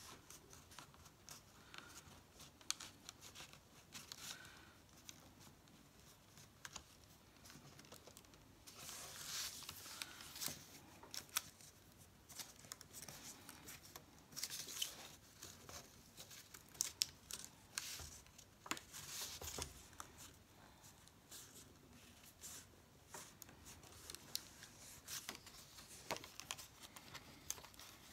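Die-cut cardstock of a pop-up card rustling and crinkling as it is folded and creased by hand, fingers and nails pressing along the folds: a run of faint scrapes and small clicks, in a few slightly louder spells.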